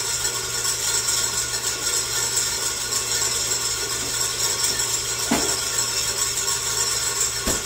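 Electric mixer running steadily, whipping egg whites until fluffy peaks form. Two short knocks, a little after five seconds and again near the end.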